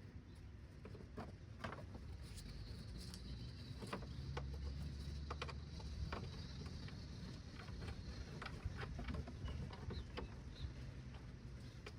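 Scattered light clicks and knocks of hand work fitting a truck mud guard and starting its bolts by hand, over a low steady rumble.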